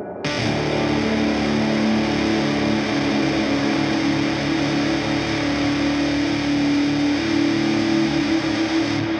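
Live film-score music from a band: a loud, dense, noisy wash over held low drone notes comes in suddenly just after the start. The held note steps up a little about seven seconds in, and the hiss on top drops away just before the end.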